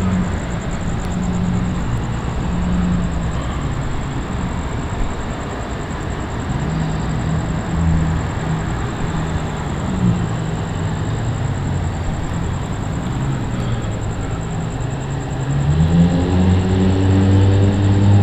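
Car engine and road noise heard from a moving vehicle, steady for most of the stretch, then the engine picks up and grows louder about sixteen seconds in.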